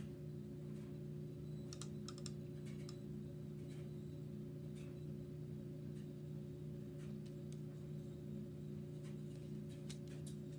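Scattered light clicks and taps of paintbrushes and paint supplies being handled on a table, over a steady low hum.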